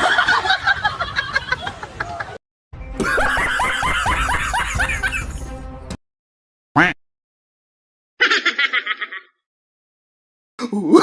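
A string of separate comedic laughter sound effects: cackling and snickering laughs in short clips that cut off suddenly into silence. Near the end there is a quick, high-pitched giggle.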